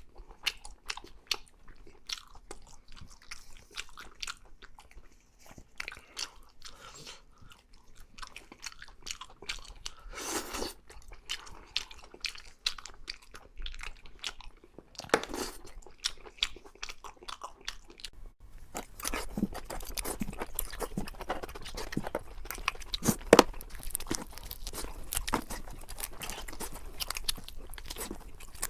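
Close-miked eating: biting and chewing with crisp crunching, sparse at first with a couple of longer rustling or slurping sounds, then becoming louder and steadily crunchy about two-thirds in.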